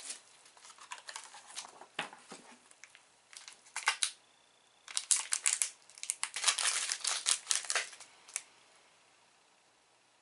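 Plastic snack wrapper crinkling and rustling as it is handled and opened: scattered crackles, then a dense run of loud crinkling from about five to eight seconds in that stops abruptly.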